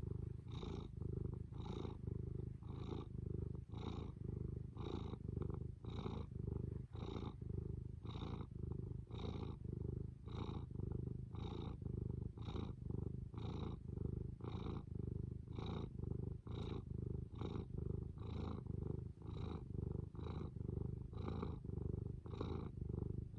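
Domestic tabby cat purring close up: a steady low purr that swells and eases in an even rhythm about once a second.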